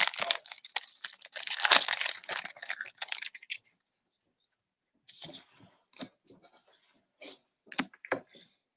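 Foil wrapper of a hockey card pack tearing and crinkling for about three and a half seconds. After a short pause, a few soft clicks and rustles as the cards are thumbed through.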